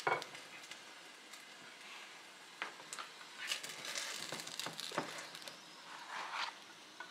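Pierogi sizzling in a frying pan, with several sharp knocks and scrapes as a nylon spatula works against the pan to lift them out.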